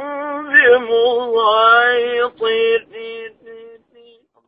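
A man's voice in melodic Quranic recitation holding out the last note of a verse, then copying an echo with his own voice: three or four short repeats of the same note, each shorter and fainter, until they die away.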